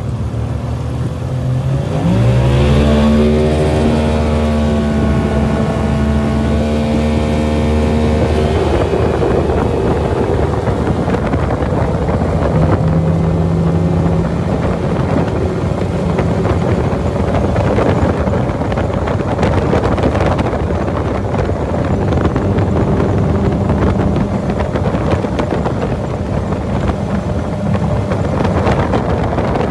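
Outboard motor on a small aluminium boat opened up from low speed about two seconds in, its pitch climbing as it accelerates the boat onto the plane. It then runs steadily at full throttle under heavy wind and water rush as speed builds to about 90 km/h, during an engine-height test with the jack plate raised 40 mm.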